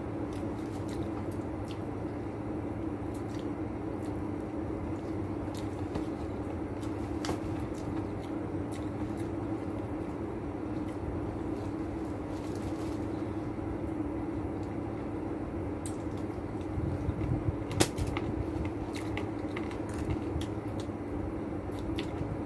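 A steady low background hum with a constant tone, overlaid with scattered small clicks and taps from hands handling fried chicken pieces and a paper takeaway box while eating. The sharpest click comes about eighteen seconds in.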